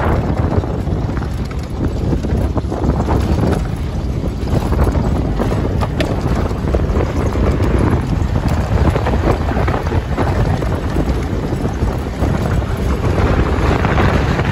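Wind buffeting the microphone through the open roof of a moving safari vehicle, over the steady rumble of the vehicle driving on a gravel dirt road.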